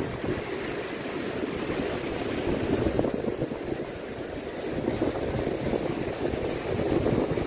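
Pacific Ocean waves washing onto the shore: a steady rushing surf that swells about three seconds in and again near the end.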